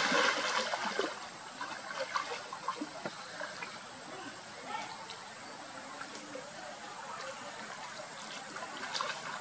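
Water splashing and sloshing as a young macaque swims: a loud splash at the start fading over about a second, then softer lapping with small scattered splashes, a few more near the end.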